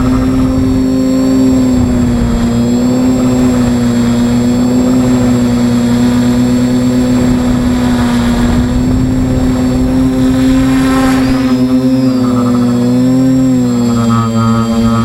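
Electric motors and propellers of a small multirotor drone, heard from its own onboard camera: a loud, steady buzzing hum whose pitch wavers, with the separate motors' tones drifting apart and back together about twelve seconds in as the craft manoeuvres. A low rumble of wind runs underneath.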